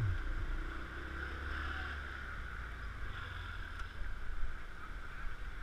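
Small motorbike engine running steadily at low speed, with wind rumble on the bike-mounted microphone.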